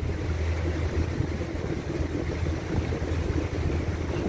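Small motorboat's engine running steadily while under way, a continuous low hum with water and wind noise over it.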